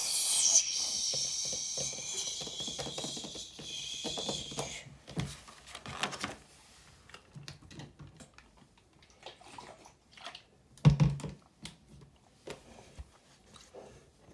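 A long hissing 'sssss' made with the mouth, imitating a spray can, lasting about five seconds and fading out. It is followed by paper rustling, light taps and a soft knock as a book page is turned and pressed flat.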